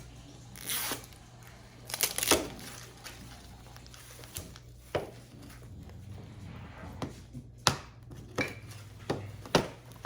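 Plastic packaging being torn open and crinkled while a Mini Brands capsule is unwrapped, with several sharp plastic clicks and snaps scattered throughout.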